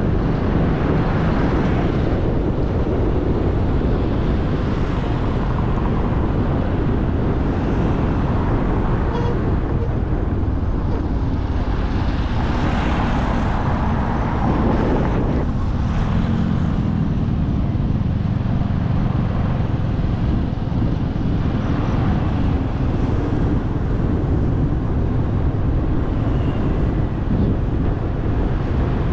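Steady wind rush on the microphone and road noise from riding along a road at speed, with other traffic around. There is a louder swell about halfway through as vehicles pass close by.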